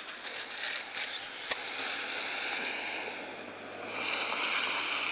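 Steady hiss of street noise on a wet, slushy road, growing louder near the end as a vehicle moves along it. A brief high wavering squeak and a sharp click come a little over a second in.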